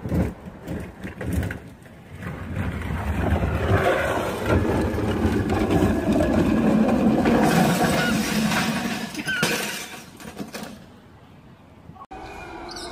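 Wheels of a homemade cart rolling and scraping down an asphalt driveway, with the clatter of a crash and tip-over. The loud rolling noise lasts several seconds and fades out near the end.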